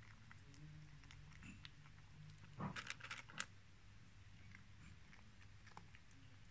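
Cat crunching dry kibble: faint chewing, with a short run of louder crunches about two and a half seconds in.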